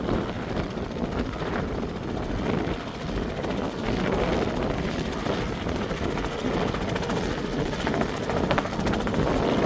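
Helicopter coming in to land, its rotor beating in a steady rapid chop with engine noise underneath.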